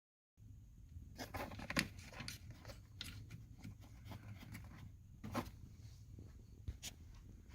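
Irregular clicks, taps and rustles of close handling, loudest just under two seconds in and again past the five-second mark, over a steady low hum.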